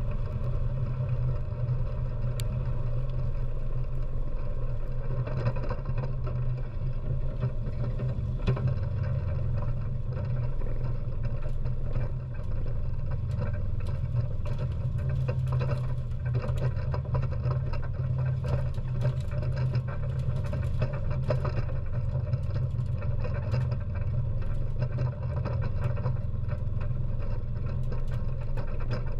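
ATV engine running steadily as the quad drives over rough ground, with frequent small rattles and knocks throughout.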